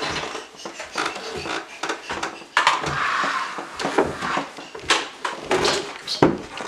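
Footsteps on wooden stairs with scattered knocks and rustling, and a short hiss about two and a half seconds in.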